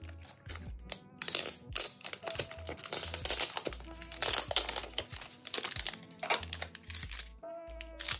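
Glossy paper mini posters rustling and crinkling in quick strokes as they are handled and pulled apart, over background music with a low bass line.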